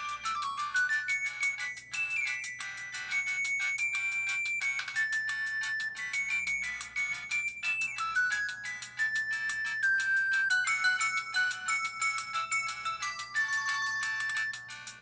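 Samsung Anycall SPH-W3000 mobile phone playing a melodic built-in ringtone: a quick, continuous run of high stepping notes.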